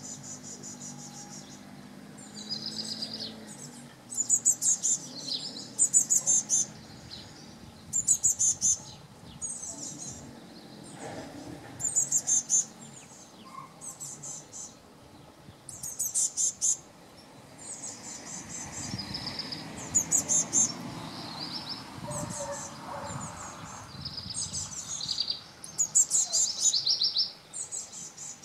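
Young Eurasian blue tit calling: short bursts of rapid, very high-pitched notes, repeated about every two seconds.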